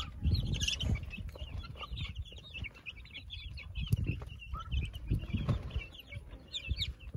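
A brood of young chicks peeping continuously, many short high chirps overlapping, with hens among them, over bursts of low rumble.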